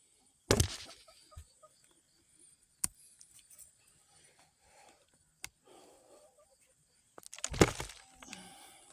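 Digging sweet potatoes out of a hill by hand: a loud strike into the soil about half a second in, a few light knocks, then a burst of scraping and thudding in the dirt near the end, with quiet rustling of soil and vines between.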